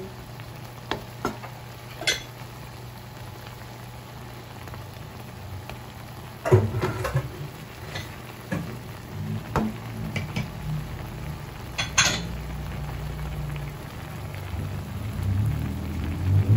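Shrimp simmering in a garlic butter sauce in a wok, a steady bubbling sizzle, with a few sharp knocks against the pan, the loudest about six and a half and twelve seconds in.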